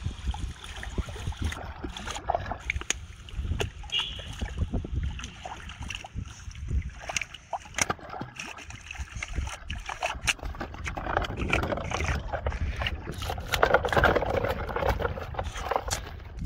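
Water splashing and sloshing as a hooked carp thrashes at the surface and a person wades through shallow water, in irregular bursts that are loudest about two-thirds of the way in.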